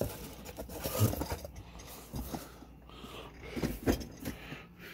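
Old cardboard boxes being handled and shifted about in a plastic storage bin: irregular scraping and rustling with a few light knocks.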